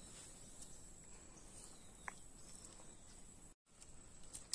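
Near silence: faint outdoor background with a steady high-pitched hiss, one brief chirp about two seconds in, and a short dead gap near the end.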